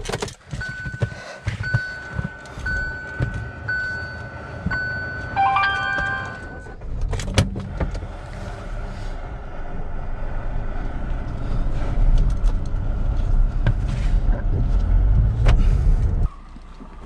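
A car's warning chime beeps about once a second, followed by a short multi-tone chime and a knock. Then the car's engine runs as it is driven, its low rumble building until it cuts off abruptly near the end.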